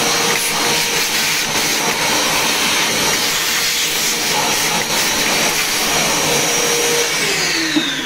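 Vacuum cleaner running with a steady high whine as its hose sucks debris out of the cigarette machine's chamber seat. About seven seconds in it is switched off, and the motor's whine falls in pitch as it spins down.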